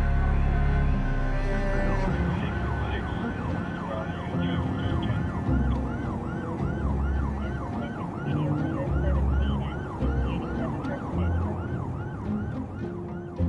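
Emergency-vehicle siren on a fast yelp, its pitch rising and falling about three times a second, over low background music.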